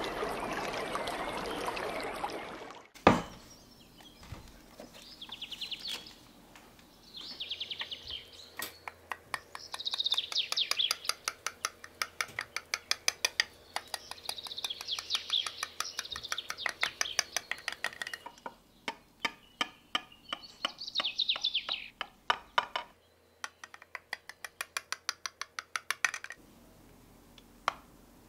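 Running water for the first few seconds, then a sharp knock, then spells of rapid, rhythmic clinking of a utensil stirring against a bowl.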